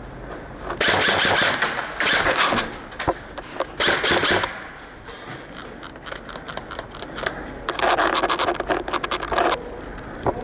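Airsoft gun firing on full auto: four rapid rattling bursts, the last and longest nearly two seconds, with scattered single clicks between them.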